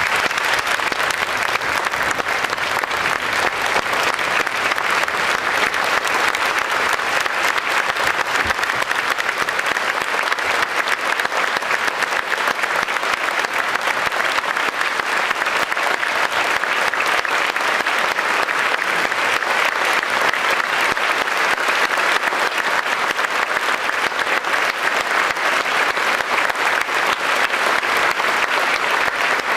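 Large audience applauding: dense, steady clapping that keeps up without a break.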